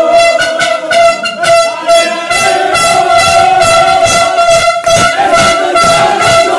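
Plastic stadium horns blown in a long, steady held note, with rhythmic clapping underneath.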